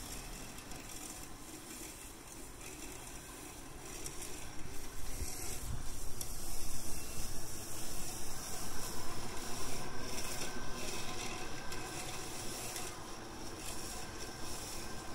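Robotic lawn mower driving through long grass, its spinning blade cutting with a steady whirring hiss that grows louder about four seconds in.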